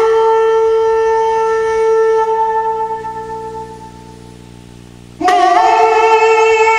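Two long blasts on a horn-like wind instrument. Each starts with a short upward slide into one steady note. The first fades out gradually, and the second comes in loudly about five seconds in and holds.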